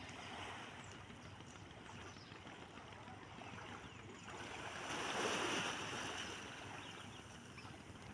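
Sea waves washing ashore, a steady wash with one wave swelling louder about five seconds in.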